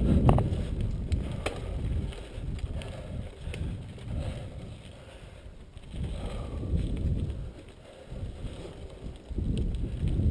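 Mountain bike riding fast down a dirt singletrack: tyres rumbling over the trail and wind buffeting the helmet-mounted microphone, with a few rattling clicks from the bike near the start. The noise eases off in the middle and builds again near the end.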